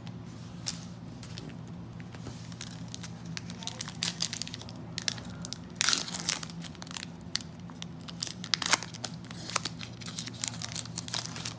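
Foil wrapper of a trading-card pack being torn open and crinkled by hand: a run of sharp crackles, loudest about six seconds in and again near nine seconds, over a steady low hum.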